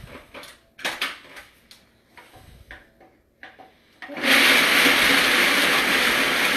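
Clicks and knocks as a blender pitcher is seated on its base and the control panel is pressed. About four seconds in, a Ninja countertop blender starts suddenly and runs loud and steady, crushing frozen banana, pineapple and ice.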